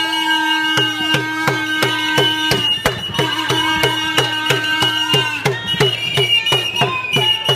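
Fans' hand drum beaten in a fast, steady beat, with a plastic horn blowing long held notes and a whistle sounding a high steady tone over it.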